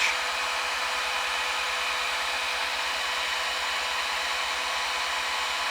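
Heat gun running steadily, blowing hot air at about 500 degrees to soften stiff plastic water-line tubing.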